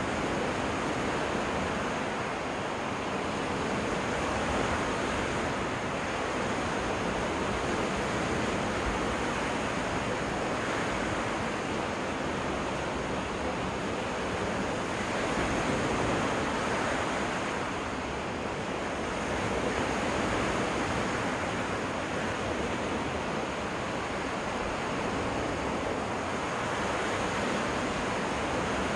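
Freshwater lake waves washing onto the beach in a steady wash of surf that swells and eases every few seconds.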